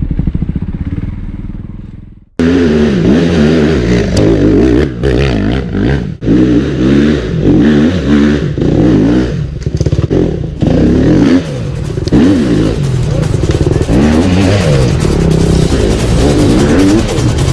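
Motorcycle engine revving, its pitch rising and falling again and again; it cuts in abruptly a couple of seconds in, after a fading sound and a brief near-silence.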